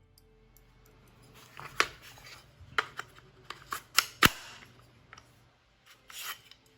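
A run of sharp clicks and knocks, the loudest about four seconds in, then a softer rustle near the end: small AR-15 lower receiver parts and tools being handled and fitted together.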